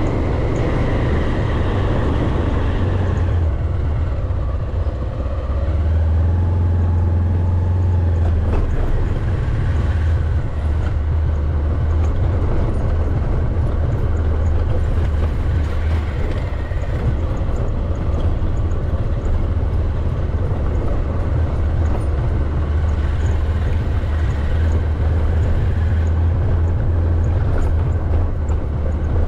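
Steady low rumble of a vehicle travelling along a road.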